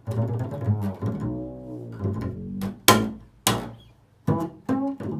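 Improvised instrumental music: low string-instrument notes, some held and some with sharp plucked attacks.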